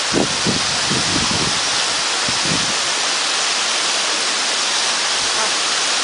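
Tall waterfall spilling down a cliff face into spray: a steady rushing hiss of falling water. A few low, uneven rumbles come through during the first couple of seconds.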